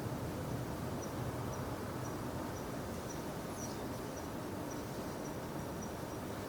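Crickets chirping, a faint high chirp repeating about twice a second, over a low steady ambient rumble.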